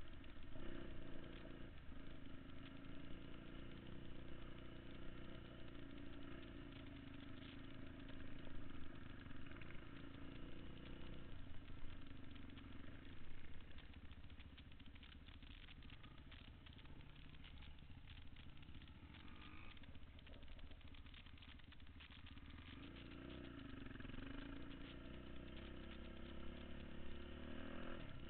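Dirt bike engine running while riding a gravel trail, its pitch rising and falling as the throttle opens and closes.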